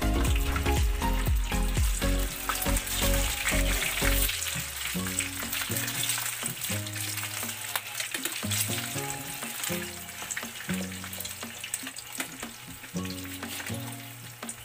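Food sizzling as it fries in a pan, a steady hiss, with background music over it; the music's heavy beat drops out about four seconds in, leaving held notes.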